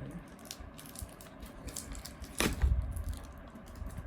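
Packaging being handled: a run of small clicks and crinkles from a cardboard box and its wrapping, with a louder scrape and dull thump about two and a half seconds in.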